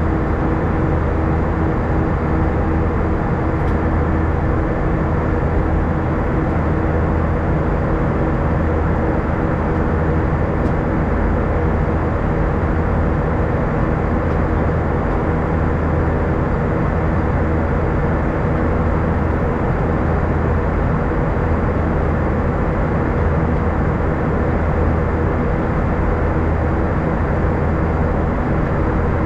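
Steady cabin noise inside an Airbus A320 in flight: a rush of airflow and engine drone, with a low hum and a steady mid-pitched tone under it.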